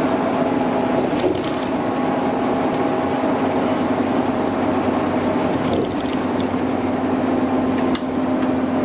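Scania K310UB city bus under way, heard from inside the cabin: the rear-mounted diesel engine and driveline give a steady drone with a steady hum over tyre and road noise. A single sharp click or rattle comes near the end.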